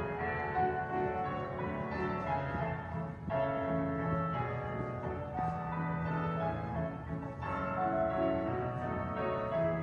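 Instrumental background music with held, ringing notes, the chords changing every second or two.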